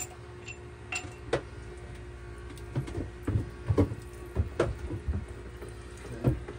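Scattered clinks and knocks of metal bolts, parts and tools being handled on a diesel engine's cylinder head, about eight short strikes over a steady low hum.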